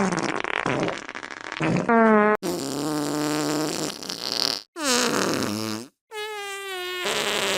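Fart sound effects played back to back, about four in a row with abrupt cuts between them. They are drawn-out, buzzy and pitched, and one near the middle slides down in pitch.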